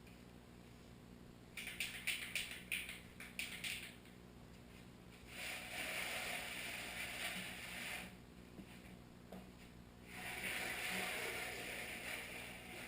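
Aerosol spray paint can: a quick run of rattling clicks as it is shaken, then two spells of steady spraying hiss, each a couple of seconds long.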